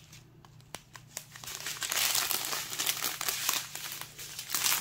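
Plastic zip-lock bags of diamond painting drills crinkling and rustling as they are handled. It is fairly quiet for about the first second, with a few clicks, then turns into a steady run of crinkling.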